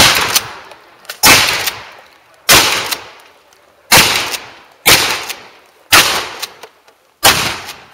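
Shotgun firing buckshot, seven shots about a second apart, each followed by a ringing echo that fades before the next.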